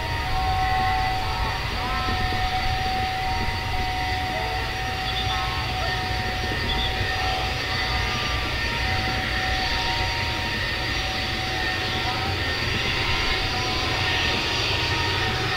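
Avro RJ85's four Honeywell LF507 turbofan engines running steadily while the jet taxis. There is a constant low rumble with a steady high whine over it.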